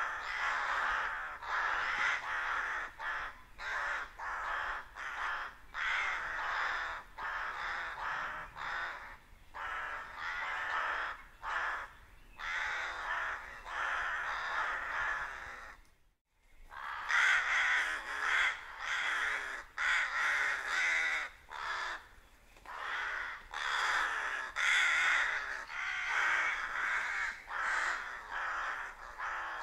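A flock of rooks cawing: many harsh calls overlapping in a dense, continuous din, broken by a brief silent gap about halfway through.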